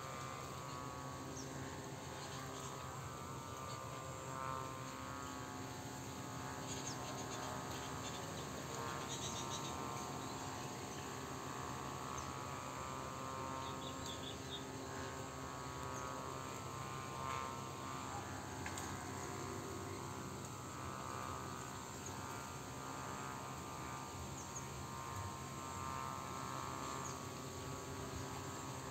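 Steady rural outdoor ambience: an even background hiss over a constant low hum, with faint insect sounds and a few short high chirps here and there.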